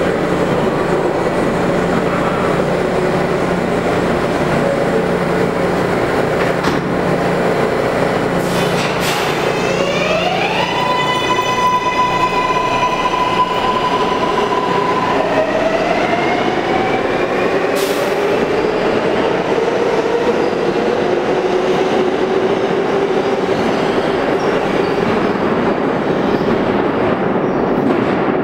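R143 subway train shutting its doors and pulling out of the station: its traction motors whine up to a steady pitch about ten seconds in, drop, then climb again as the train speeds up and rolls away over the rails.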